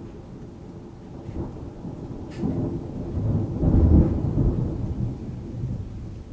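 Thunder: a low rolling rumble that builds to its loudest about four seconds in, then fades away.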